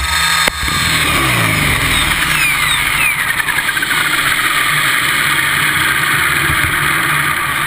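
RC helicopter touching down with a sharp knock about half a second in. Its motor and rotor then wind down, falling in pitch over the next few seconds, over a steady rushing noise.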